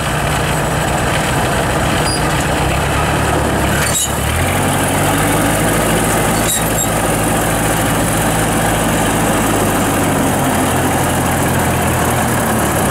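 Kubota 105X rice harvester's turbocharged diesel engine running as the tracked machine drives. About four seconds in the engine note rises and holds, then eases back down near the end. There are two sharp clacks, one as it rises and another a couple of seconds later.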